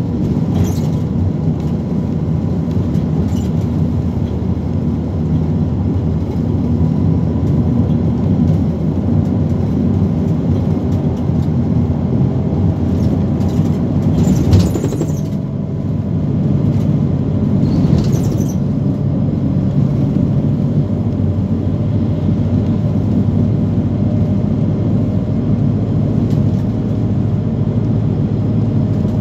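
Van Hool NewA360 bus running at cruising speed, heard from inside the passenger cabin: a steady engine and tyre rumble. A brief hiss comes about halfway through and another a few seconds later.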